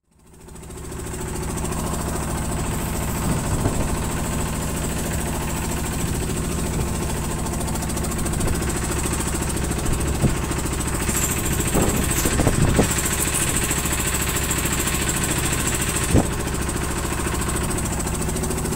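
A boat's engine on a bagang lift-net fishing boat running steadily with an even, rapid pulse. It fades in over the first second or so, and a few scattered knocks from the crew working on the frame sound over it.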